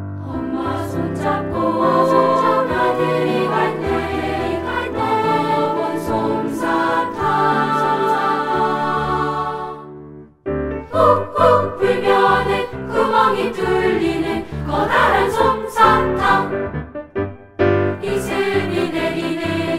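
Children's choir singing a Korean children's song in unison and parts, with piano accompaniment. The music breaks off briefly about halfway through, then resumes.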